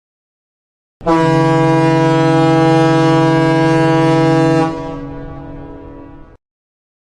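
A ship's horn sounds one long, steady, deep blast of about three and a half seconds. It then drops abruptly to a fading tail and stops.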